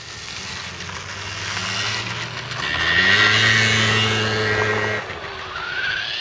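Motor scooter engine running past close by, picking up revs about halfway through, loudest for a couple of seconds and then dropping away. Near the end a rising high whine, the RC truggy's electric brushless motor speeding up.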